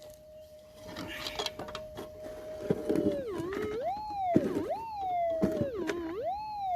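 Minelab GPZ 7000 metal detector's steady threshold hum. About three seconds in, the tone starts warbling, dipping and rising in pitch four or five times as the coil passes over the target in the dig hole. A few light clicks and scrapes from digging sound before the warble starts.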